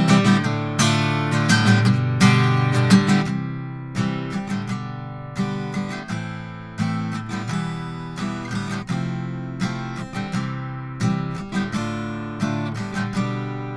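Steel-string acoustic guitar strummed in a chord progression, some chords left to ring out, picked up close on a Soyuz SU-023 large-diaphragm condenser microphone.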